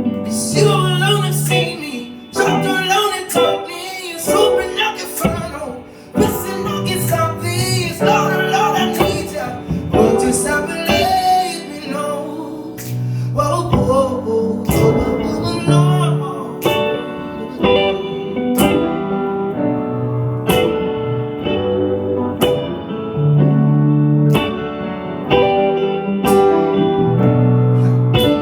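Live acoustic song with guitar. Through the first half a singing voice runs without clear words; after that the guitar carries on, strumming chords on a steady beat.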